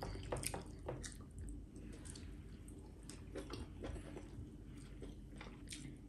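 Faint chewing and wet mouth clicks of people eating fufu and soup by hand, a scatter of soft short clicks, busiest in the first second.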